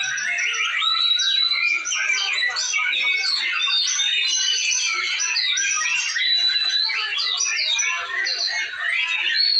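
White-rumped shama (murai batu) singing a continuous run of rapid whistled phrases, trills and chatters, packed with quick bursts and sharp pitch glides.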